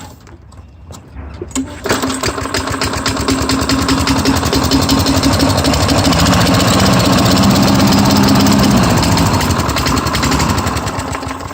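Craftsman lawn mower's 4.5 hp Tecumseh engine catches suddenly about two seconds in and runs for several seconds, then fades away near the end as it dies. The freshly primed old engine won't stay running.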